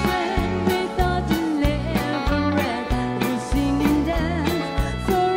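Live band music: a woman singing into a microphone over guitar, bass and a steady drum beat.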